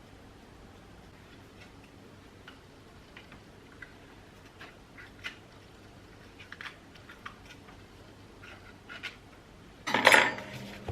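Light metallic clicks and taps of small parts being handled, then near the end a loud clatter as the old table fan's electric motor starts and settles into a steady hum.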